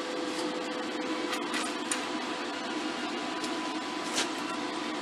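Steady fan hum with a faint tone, and a few light clicks about a second and a half in and again near the end, as welding cables are handled.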